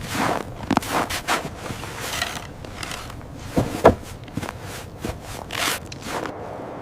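Irregular scraping and rustling noises in quick succession, with one sharper knock just before four seconds in.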